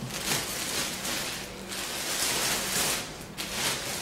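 Clear plastic bag rustling and crinkling as it is pulled back off a wheel packed in a cardboard box, in several uneven surges.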